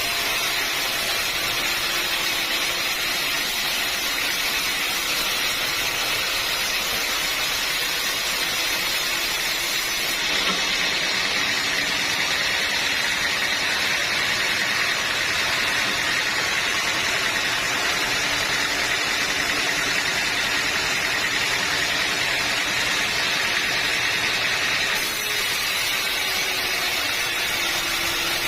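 A band sawmill runs steadily, its engine and blade sawing through a dense acacia log. The sound changes abruptly about ten seconds in and again near the end.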